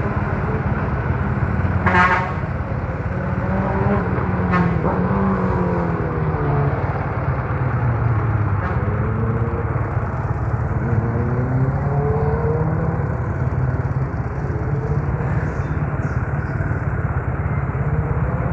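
Yamaha Mio Soul scooter engine running while riding in traffic, its pitch slowly rising and falling with the throttle. A vehicle horn toots briefly about two seconds in and again about two and a half seconds later.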